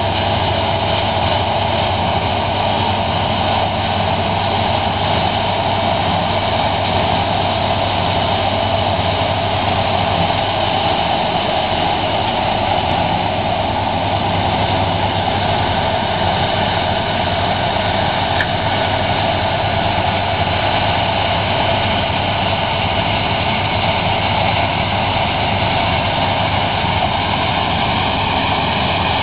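Zmaj 170 combine harvester running steadily while harvesting, its engine and threshing machinery making a continuous machine noise; a low hum weakens about ten seconds in.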